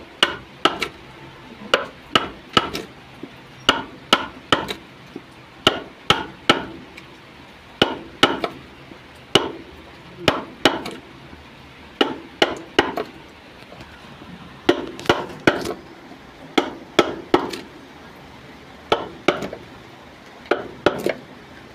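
Mallet striking a wood chisel as the inside of a wooden trough is carved out: sharp knocks in quick groups of two or three, with a brief pause about two-thirds of the way through.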